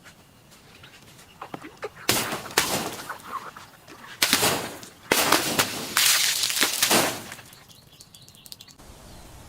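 Something crunchy being crushed: a run of loud crackling crunches from about two to seven seconds in, with a few faint clicks before and after.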